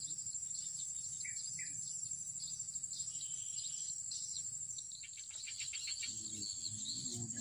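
Insects, crickets or similar, trilling in one steady, high, continuous chorus.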